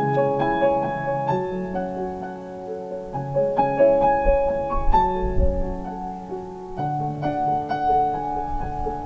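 Background piano music: a slow, gentle melody over held chords.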